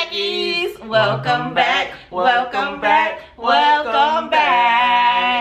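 A voice singing unaccompanied, a short melodic phrase of several notes that ends on a long held note.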